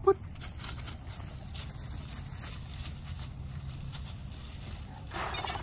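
Puppy's paws rustling and pattering through dry grass and fallen leaves as it sniffs out a search, over a steady low background rumble. A short squeak right at the start, and a louder rustle near the end.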